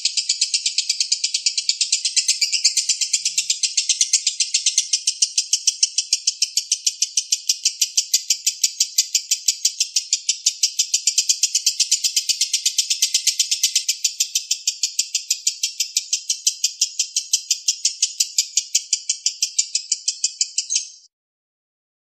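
Lovebird singing a long, unbroken run of rapid, even, high-pitched chattering, which cuts off suddenly near the end.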